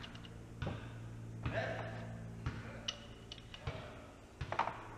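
Scattered light clicks and taps of metal tools and fork parts being handled while a motorcycle fork is taken apart, over a steady low hum.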